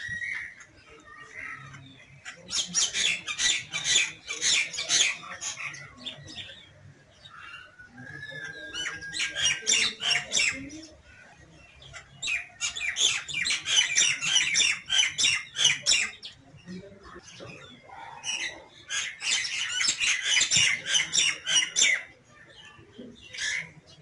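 Common myna calling in four bouts of fast, harsh repeated notes, each bout about three seconds long, with softer scattered calls and a short whistle in the pauses between them.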